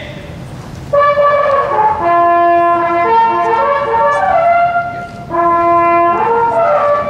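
Brass ensemble playing slow phrases of held chords, entering about a second in, with a brief break about five seconds in before the next phrase.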